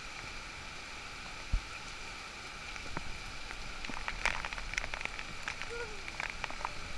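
Heavy rain falling steadily on a boat's deck and the sea around it. About halfway through, a run of sharp splashes and patters joins in as water streams and drips off a person showering in the rain. There is a single low thump about a second and a half in.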